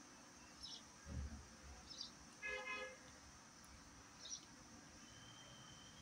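Pet budgerigars giving a few short, high chirps, faint. About two and a half seconds in there is a short honk, and about a second in a low thump.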